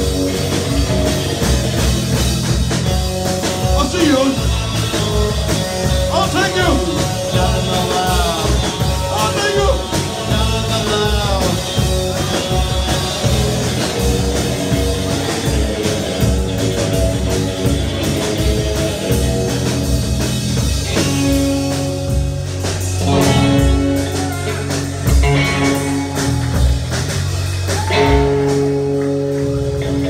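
Live rock band playing loudly on electric guitar, bass guitar and drum kit, with steady drumming throughout and several bending guitar notes a few seconds in.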